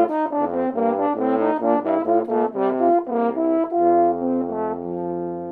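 French horn music: a quick phrase of notes changing several times a second, then a long held final note that begins to fade near the end.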